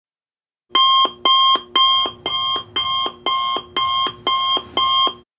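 Countdown timer's alarm going off when the time runs out: a loud pitched alarm-clock signal in nine evenly spaced pulses, about two a second. It starts just under a second in and stops about five seconds in.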